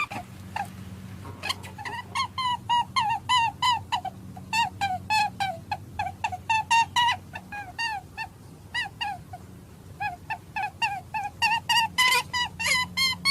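Rabbit squeaking: a rapid run of short, high squeaks, several a second. They thin out and soften for a couple of seconds past the middle, then pick up again near the end.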